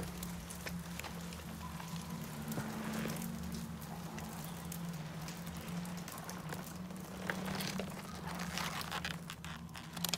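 Movie ambient sound: scattered drips and rain-like patter with faint crackles over a steady low hum.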